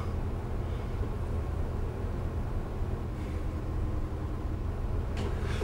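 Room tone: a steady low rumble of background noise, with no speech.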